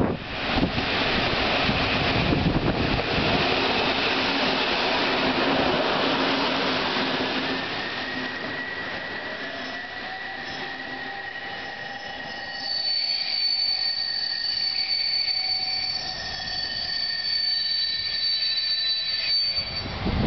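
Diesel-hauled passenger train rolling into a station: the locomotive and coaches rumble past, then the brakes squeal in several steady high tones, the highest and loudest starting about halfway through, as the train slows to a stop.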